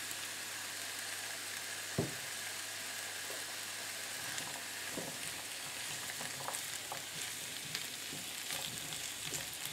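Onion, garlic, potatoes and peas sizzling gently in olive oil in a frying pan. There is one light knock about two seconds in, and a spatula scrapes through the food near the end.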